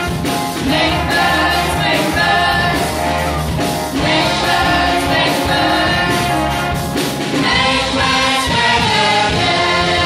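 A group of voices singing a song together, accompanied by a live band with drums and keyboard.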